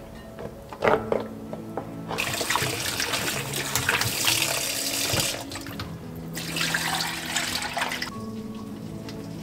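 Tap water running into a stainless steel bowl and splashing as hands wash salted ponytail radishes, in two stretches with a short lull between. Before it, a few knocks from a wooden spatula stirring thick chili paste, the loudest about a second in.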